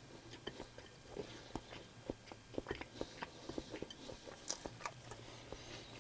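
A person chewing food close to the microphone, with many short, irregular mouth clicks.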